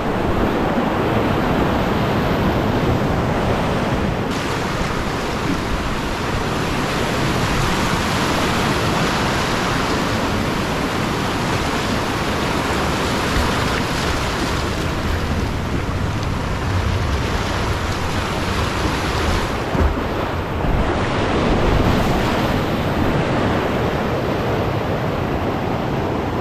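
Whitewater rapids rushing steadily, heard from a kayak running through them close to the water.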